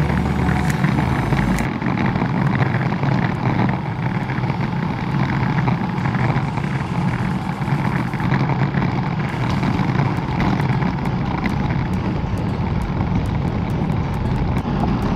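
Steady wind noise rushing over the microphone of a camera carried while cycling into a strong wind.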